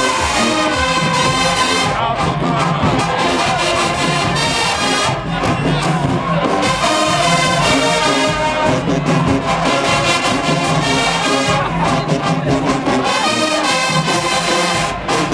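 HBCU marching band playing in the stands, a loud brass section of trumpets and trombones over drums, with the crowd around it.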